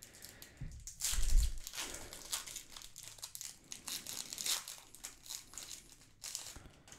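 A foil trading-card booster pack being torn open by hand, its wrapper crinkling and crackling, loudest about a second in.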